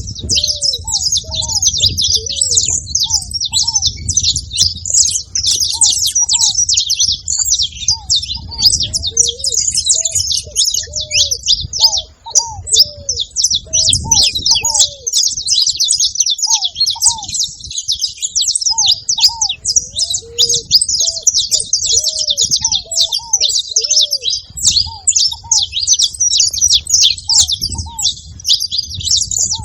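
Several saffron finches chirping and singing together in a dense, continuous high-pitched chatter. A lower, arched note repeats every second or so underneath.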